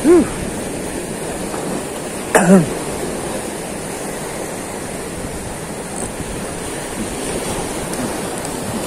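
Sea surf washing over rocks, a steady rushing noise. A man's voice gives two short exclamations, one at the start and one about two and a half seconds in.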